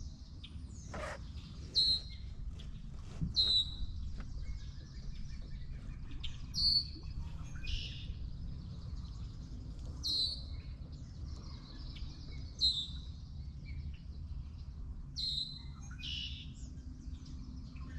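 Birds calling: short, high chirps repeating every two or three seconds over a low steady background rumble.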